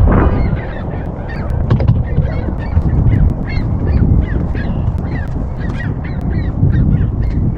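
A flock of geese honking, many short calls overlapping several times a second, over a steady low rumble of wind on the microphone.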